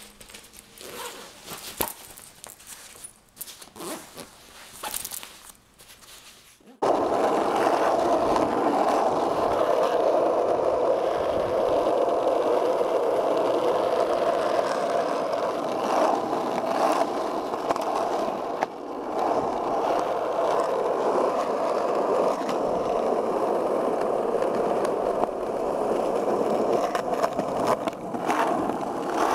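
Soft rustling of a nylon backpack being rummaged through. About seven seconds in, it cuts to the steady rolling noise of skateboard wheels on concrete, which carries on to the end.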